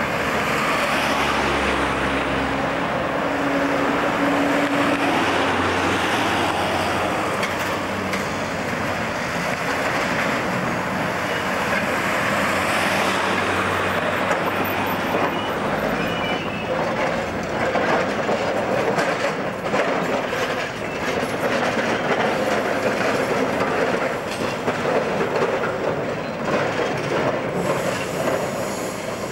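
A Melbourne W class tram running along the street amid passing car traffic. In the second half its wheels clack repeatedly over the rail joints and crossings, and a faint high whine comes briefly near the middle.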